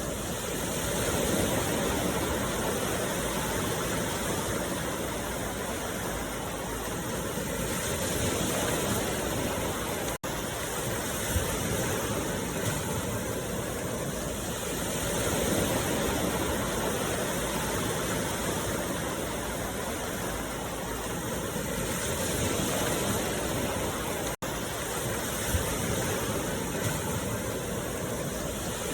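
Steady rushing noise, like running water or wind, that swells and eases slowly every several seconds. It cuts out for an instant twice, about ten seconds in and again near the end.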